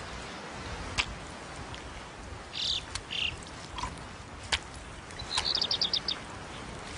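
Bird calls: two short high chirps a little before halfway, then a quick trill of about eight high notes, with a few sharp clicks in between.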